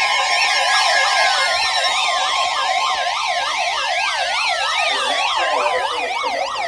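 Several electronic sirens layered together, each warbling rapidly up and down, with slower sweeps falling in pitch under a steady alarm tone that cuts off near the end.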